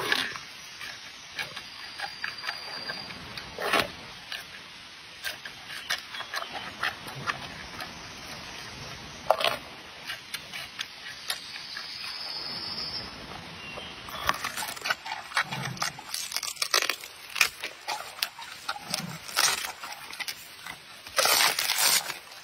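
A giant panda chewing bamboo shoots: irregular crunches and sharp cracks as it bites and strips them, coming several to a second at times.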